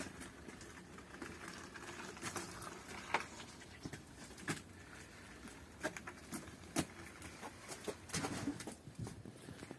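Scattered light knocks, taps and scrapes at an irregular pace, a cluster of them about eight seconds in, over a faint steady background.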